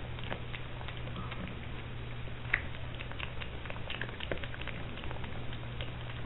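Piglet eating dry feed pellets from the floor: irregular crunching clicks as it chews and noses through the pile, one sharper crunch about two and a half seconds in. A steady low hum runs underneath.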